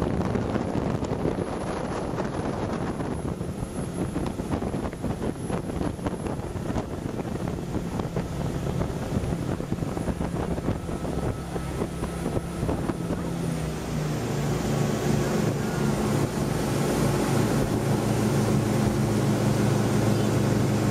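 Motorboat engine running at speed, a steady low hum over the rush of wind on the microphone and churning wake water; the engine hum grows louder about two-thirds of the way through.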